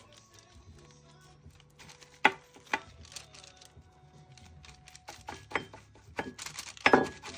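Several sharp taps and knocks as a painting sponge and a paint bowl are handled on the work table, the loudest near the end, over faint background music.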